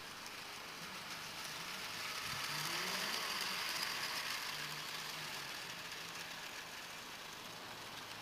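Large-scale garden-railway model diesel locomotive hauling a short string of small wagons along the track: its motor and wheels on the rails grow louder as it passes close about three seconds in, then fade as it runs away.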